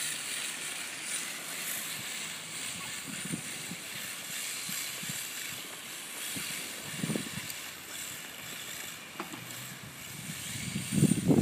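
Radio-controlled drift cars running and sliding on asphalt, a steady faint hiss of motors and tyres, with a brief low rumble near the end.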